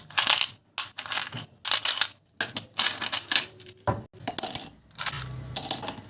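Irregular clattering and scraping, a stroke roughly every half second, with a brief metallic ring on a couple of strokes about four and six seconds in.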